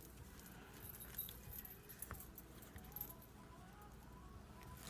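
Near silence with a few faint metallic clinks from stacked silver bangles on a wrist as the hands work sinew.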